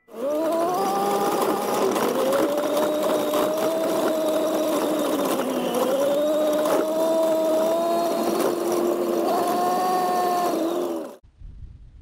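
GAZ-69 off-roader under way, heard from inside the cab: the engine and drivetrain run steadily with a high whine that dips briefly about halfway through and climbs back. The sound cuts off abruptly about eleven seconds in.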